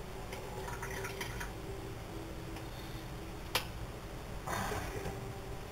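Water dripping and trickling into a kitchen sink as a soaked plush toy is squeezed out, with one sharp knock about three and a half seconds in and a brief louder rush of noise a second later.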